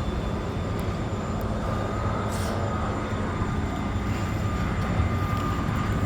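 Steady low rumble of street traffic and engines, with a faint steady high whine over it.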